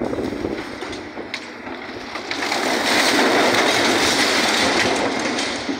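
Debris from a partly demolished brick building crashing and clattering down as a Komatsu excavator pulls part of the structure away. A few scattered knocks at first, then a loud, sustained rattling collapse that builds about two seconds in and eases off near the end.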